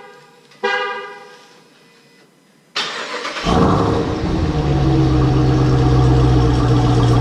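A short horn-like chirp about half a second in; then, nearly three seconds in, a Jeep Grand Cherokee's engine starts with a sudden burst and settles into a steady idle, echoing in a parking garage.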